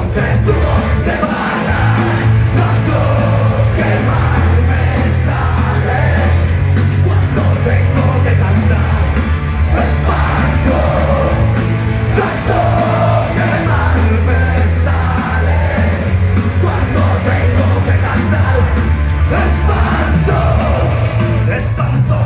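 Live punk rock band playing at full volume: electric guitars, bass guitar and drum kit, with a singer shouting the vocals.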